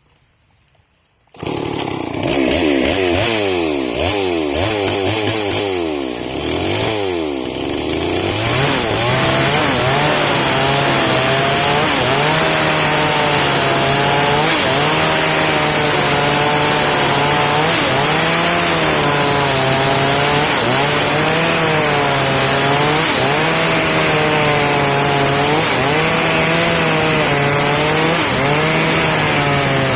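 Stihl MS 381 two-stroke chainsaw comes in suddenly about a second in and is revved up and down for several seconds. It then runs at full throttle cutting through a waru log, its pitch dipping and recovering every second or two as the chain bites and clears.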